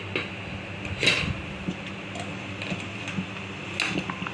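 Two light knocks of a ceramic double-boiling pot being handled, the louder about a second in and another near the end, over a steady low hum and hiss.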